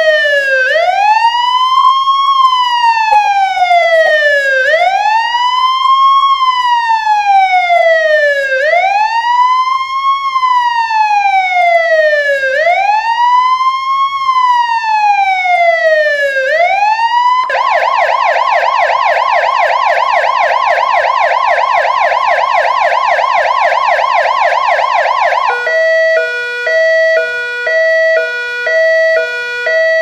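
Electronic ambulance siren. It starts with a slow wail that rises and falls about every four seconds. A little past halfway it switches to a fast yelp, and near the end to an alternating two-note hi-lo tone.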